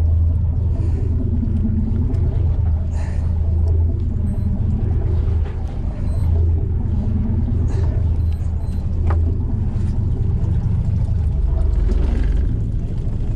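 A fishing boat's engine running with a steady low rumble, with a faint wavering tone rising and falling every couple of seconds.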